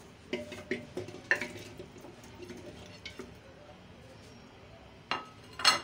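Raw beef trotter pieces tipped from a plate into an empty clay cooking pot (handi), knocking and clattering against the pot with short ringing. A few knocks come in the first second and a half, then quieter handling, then two louder knocks near the end.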